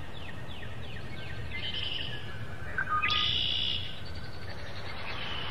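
Birds calling: a quick run of short falling notes, then a brighter, louder call about three seconds in, over a steady background hiss.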